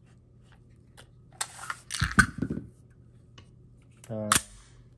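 Slide of a PSA Rock 5.7 pistol (5.7×28mm) being worked by hand: a run of metallic clicks and scrapes, then a sharp snap about two seconds in as the slide goes forward. Near the end, a brief murmur of voice and one more sharp click.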